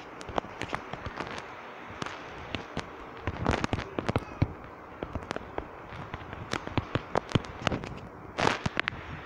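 Irregular run of sharp taps and clicks while text is typed on an Android phone's on-screen keyboard, over a steady background hiss. A couple of short, louder scuffing noises come about a third of the way in and near the end.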